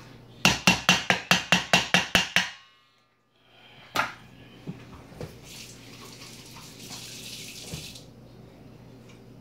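A utensil clanking against a metal bowl, about ten quick ringing strikes, roughly five a second. After a short break comes a single click, then a couple of seconds of running water.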